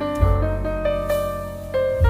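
Background piano music: a gentle melody of notes changing every few tenths of a second over held low bass notes.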